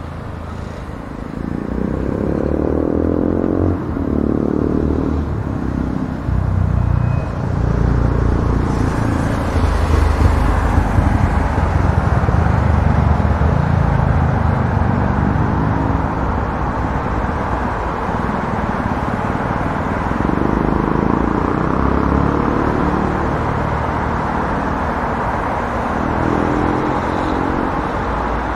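City street traffic: a steady rumble and hiss of road traffic, with the engines of passing vehicles rising and falling in pitch several times as they go by.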